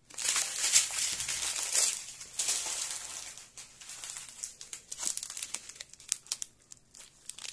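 Small plastic bags of diamond-painting drills crinkling as they are handled, a dense rustle for the first three seconds or so, then lighter scattered crinkles.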